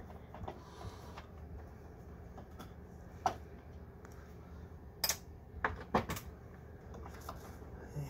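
Scattered sharp clicks and taps of a small Phillips screwdriver and metal parts being handled at the microwave's door-switch bracket screw. One click comes about three seconds in, and a cluster of clicks comes around five to six seconds in, over a low steady hum.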